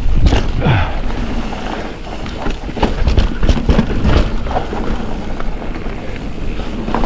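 A mountain bike, a 2023 Ibis Ripmo V2S, running fast down a dirt trail: wind rushing over the microphone, tyres rumbling on the dirt, and a steady clatter of knocks and rattles as the bike goes over bumps.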